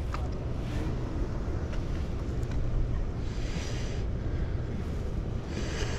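Steady low rumble of wind buffeting the microphone by the sea, with two brief hissing swells, about three seconds in and near the end.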